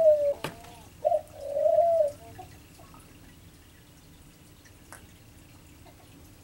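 A bird cooing in the room: a short steady note about a second in, then a longer one that falls slightly as it ends. There is a light click just before the calls.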